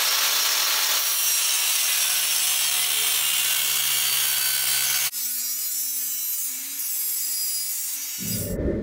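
Angle grinder with a cut-off wheel cutting through a metal exhaust pipe: a loud, steady metal-cutting screech over the motor's hum. About five seconds in, the sound changes abruptly and becomes somewhat quieter, with the motor tone sitting higher.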